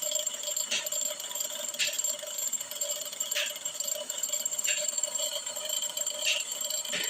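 Brake lathe cutting a cast-iron brake drum: the spinning drum rings with a steady high metallic tone under the cutting tool, with an irregular scraping tick every second or so.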